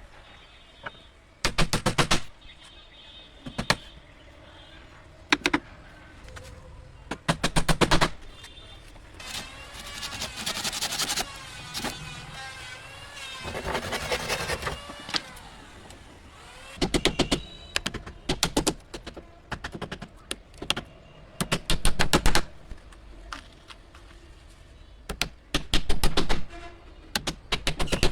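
Power tools at work on a wooden frame: repeated short bursts of rapid mechanical clicking, with a wavering whine in the middle stretch.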